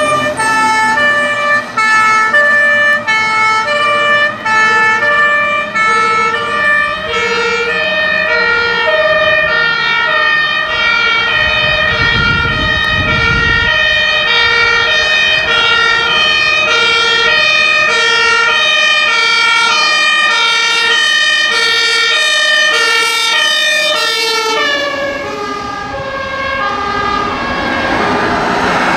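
German two-tone emergency sirens (Martinshorn) on fire and rescue vehicles, stepping back and forth between a high and a low note, with a vehicle engine rumbling past about halfway through. The sirens grow fainter near the end.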